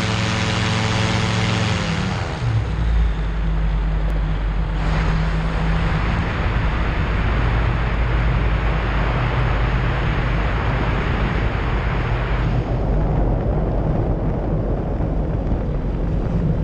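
Light amphibian's pusher engine and propeller running steadily, then throttled back about two seconds in. Wind then rushes hard over the microphone as the aircraft glides low over the water, and the engine power comes back up, rising in pitch, at the very end.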